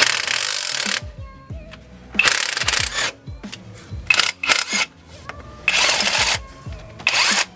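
Cordless drill with a socket spinning in five short bursts, undoing intake manifold bolts, over quiet background music.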